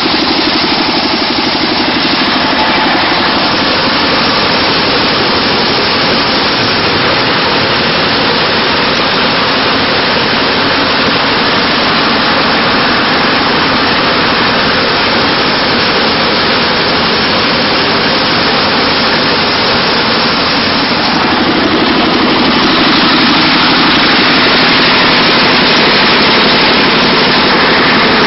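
Multi-crop thresher running steadily while threshing chickpea plants, a loud, dense, even machine noise that gets a little louder about three-quarters of the way through.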